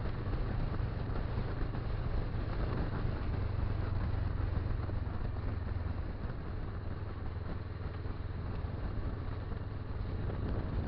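Motorcycle engine running steadily at road speed, a low even drone, with wind and road noise over it.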